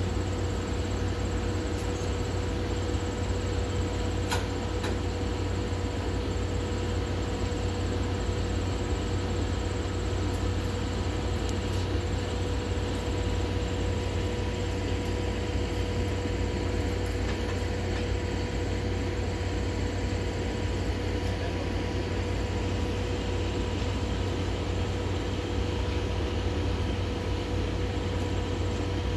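C11 steam locomotive and brake van moving slowly at walking pace: a steady hiss and low hum with a faint steady whine and no chuffing rhythm. There is one light click about four seconds in.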